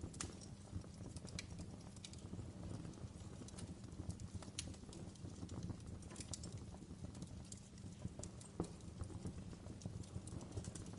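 Wood fire crackling in a fireplace: irregular sharp snaps and pops over a low, steady rumble of burning.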